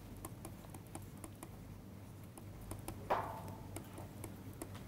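Faint, irregular ticks and scratches of a stylus writing on a tablet screen, over a low steady hum. About three seconds in there is one short, louder sound.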